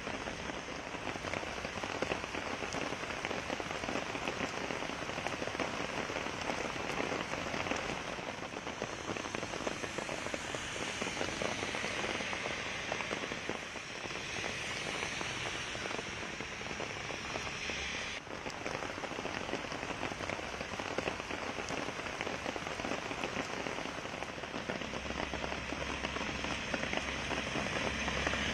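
Heavy rain pouring steadily onto a wet road, a dense even hiss. Near the end a vehicle's low engine rumble builds under the rain.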